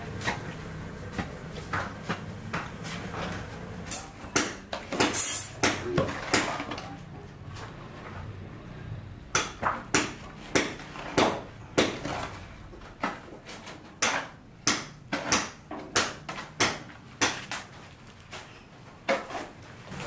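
Steel shovels scraping and chopping through a damp sand-and-cement mortar mix on a concrete floor: a run of sharp scrapes and knocks, about one or two a second, with short pauses between bouts.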